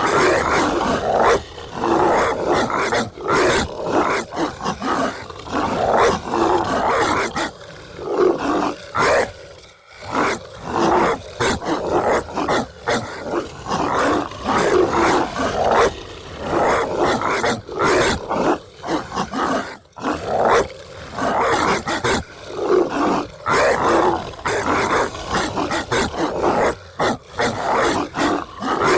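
Zombie dog sound effect: harsh, snarling dog barks and growls in quick succession, with only short gaps between them.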